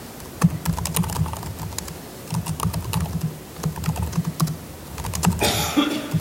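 Laptop keyboard typing: irregular keystrokes, each a click with a dull low thud, in short runs.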